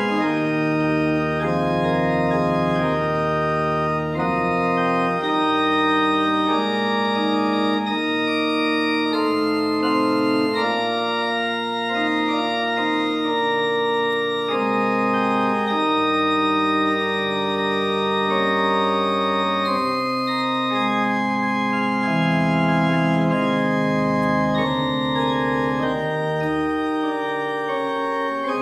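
Organ playing slow, held chords, the notes changing every second or two.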